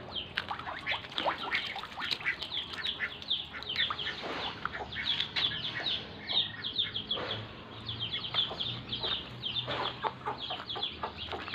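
A brood of chicks peeping without pause: many rapid, short, high chirps that slide down in pitch and overlap one another.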